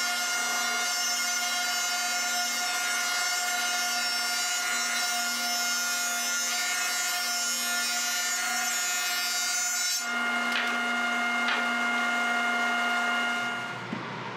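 Jointer running as a maple board is pushed across its cutterhead for face jointing: a steady motor whine over the hiss of the knives cutting, played at double speed. A couple of knocks come about ten to eleven seconds in, and the sound dies away near the end.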